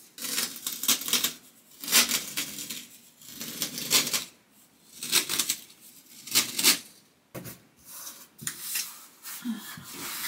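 Old masking tape being pulled off its roll in a series of short, crackling pulls, about one a second.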